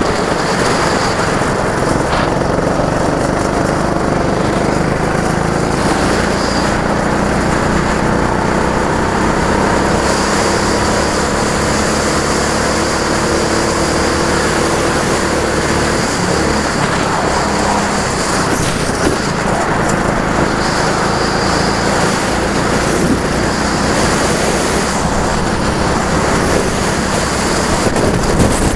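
Go-kart engine running continuously on track, its pitch shifting up and down with the throttle.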